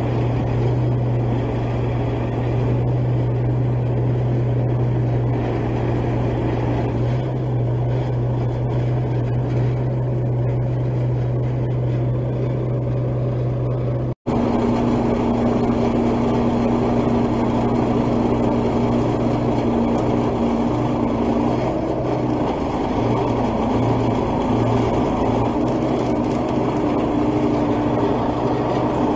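M816 military wrecker's six-cylinder diesel engine running steadily. The sound breaks off for an instant about halfway through, after which the engine note changes and a steadier, higher hum comes in.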